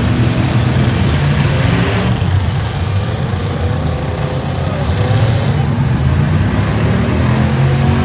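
V8 engines of stock demolition derby cars running loud, with revs climbing and falling around the middle.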